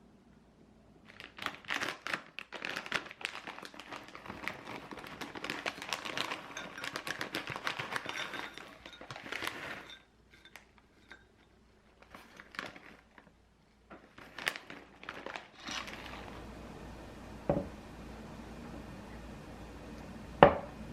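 Packaging crinkling and rustling as it is handled, with scattered light clicks, followed by a couple of sharp knocks, the loudest near the end.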